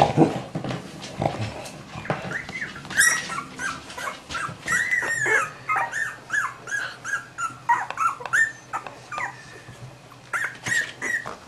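Cavalier King Charles Spaniel whimpering: a long run of short, high squeaks, many falling in pitch, several a second, after a few soft knocks and rustles in the first two seconds.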